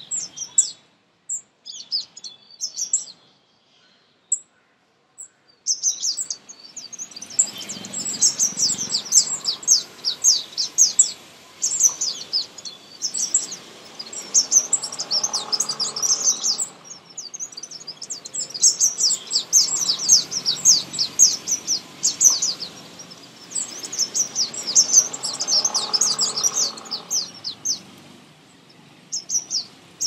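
Rapid, high chirping of small birds. A few scattered chirps come first, then from about six seconds in a dense, continuous chatter of quick chirps that swells and fades in waves every few seconds.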